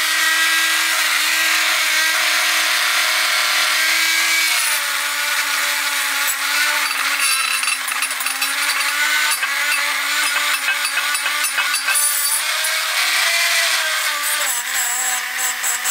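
Cordless rotary tool with a small wire wheel brush running at speed, scrubbing leftover grime out of the nooks of an aluminium engine case. Its steady whine sags in pitch twice as the wheel is pressed into the metal, about four seconds in and again near the end, over a scratchy rasp of wire bristles on aluminium.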